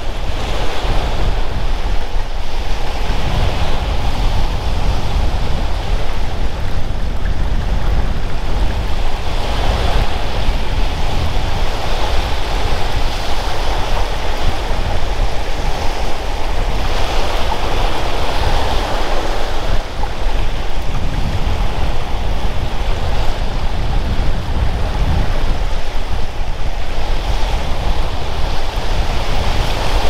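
Sea surf breaking and washing onto a beach, swelling and ebbing every several seconds, with wind rumbling on the microphone.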